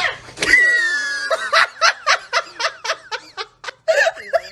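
A person laughing hard. A short high-pitched cry is followed by rapid, high laughter at about four bursts a second.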